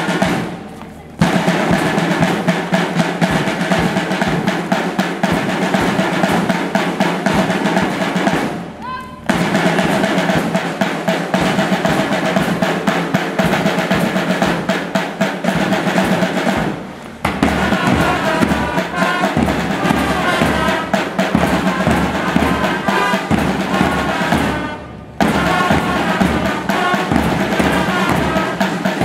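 School marching band playing brass over snare and bass drums, in phrases broken by short pauses about every eight seconds. Steady low bass-drum beats come in about two-thirds of the way through.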